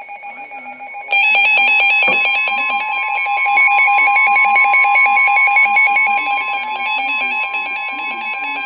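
Emergency Alert System attention tone: a steady, loud alarm tone at two pitches that jumps louder about a second in. It signals the start of a new tornado warning broadcast.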